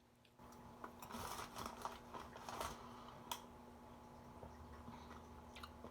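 Faint crunching of popcorn being chewed, with scattered crackly clicks.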